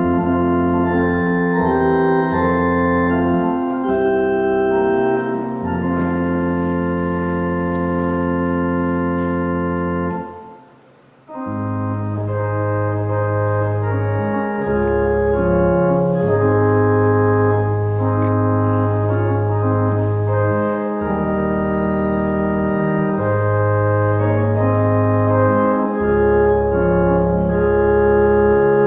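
Organ playing slow, sustained chords over long held bass notes, with a brief break about ten seconds in before the next phrase begins.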